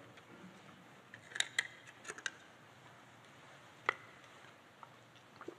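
A few sharp clicks and taps from small objects being handled in the hands, coming in small clusters with the sharpest single click about four seconds in.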